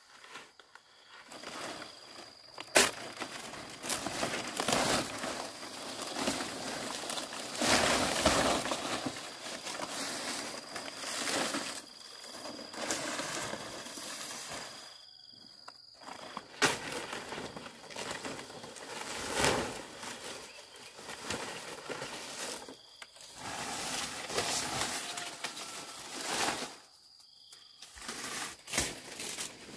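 Irregular rustling and crackling of things being handled, with a few sharp knocks, over a steady high insect drone. The sound breaks off briefly twice.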